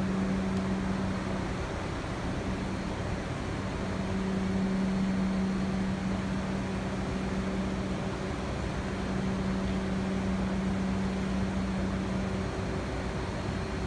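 Subway train standing at the terminal platform, its air-conditioning and on-board equipment giving a steady hum and rush, with a low steady tone that cuts out and comes back several times.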